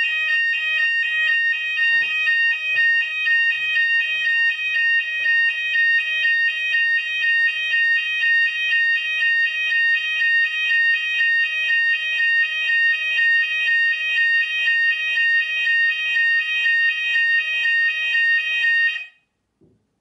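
Fire alarm sounders of a Hochiki ESP addressable system sounding a loud, steady high tone layered with a pulsing tone about twice a second, then cutting off suddenly near the end. The alarm has been set off by test smoke sprayed into a smoke detector.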